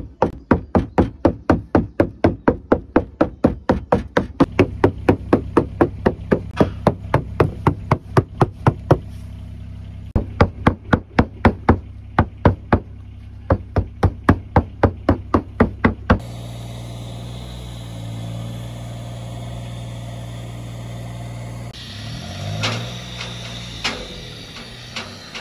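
Mallet beating metal roof flashing through a protective pad, dressing the sheet to the stone wall: a fast run of sharp knocks, about three to four blows a second, with a short pause a little before halfway, and the blows stop about 16 seconds in. A steady hissing noise with a low hum follows, from a gas soldering torch worked along the flashing.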